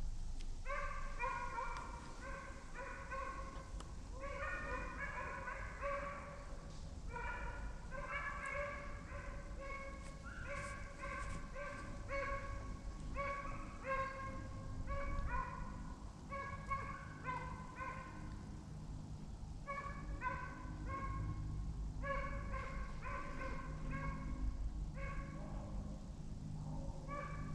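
Deer hounds barking and baying in quick runs of calls, sometimes overlapping, with short gaps between runs: the pack giving voice as it trails a deer on the drive. A steady low rumble lies underneath.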